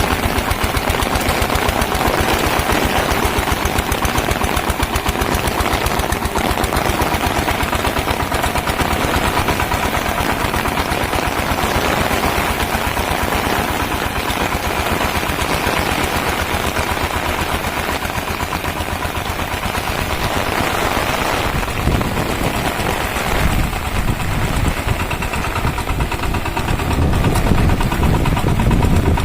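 Single-cylinder diesel engine of a Shakti power tiller running steadily, its exhaust a fast, even chugging. The low rumble grows heavier and louder over the last several seconds, as if the engine takes more load.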